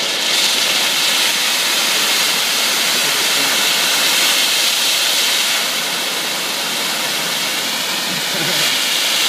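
HHO (oxyhydrogen) torch burning with its gas turned up high: a loud, steady hiss of gas and flame from the nozzle.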